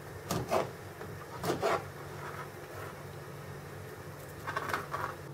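Kitchen knife cutting currant twigs on a plastic cutting board: a few short snaps and scrapes, coming in three small clusters.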